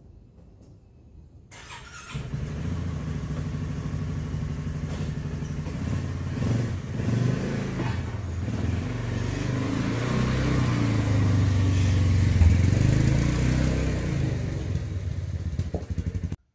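Side-by-side UTV engine starting about a second and a half in, then running as the vehicle is driven forward out of the garage, growing louder as it comes closer before cutting off suddenly near the end.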